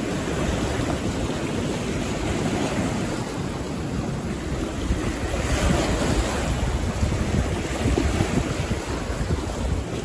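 Sea waves washing onto the shore, with wind buffeting the microphone; a wave breaks more loudly a little past halfway through.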